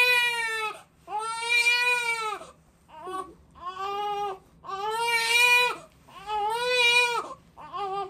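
Newborn baby crying in repeated high-pitched wails, about six in all, each lasting about a second with a short pause for breath between.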